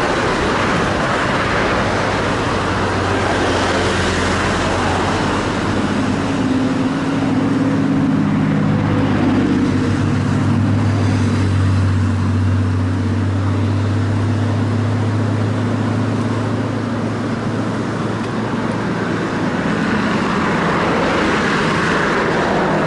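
Road traffic on the bridge's roadway beside the footpath: a steady rush of passing cars, with one vehicle's low engine drone standing out from about six seconds in until near the end.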